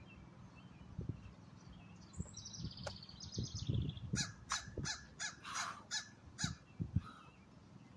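Dull thuds of a person doing burpees on gravel, several of them, from feet and hands landing. Birds call over it: a high chirping call about two seconds in, then a run of harsh calls about three a second.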